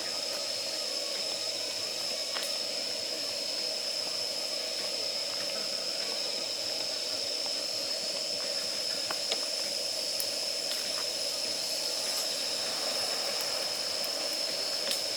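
Gas burner running with a steady hiss and a constant high tone as it is held to damp firewood to force it to light, with a few faint crackles from the wood.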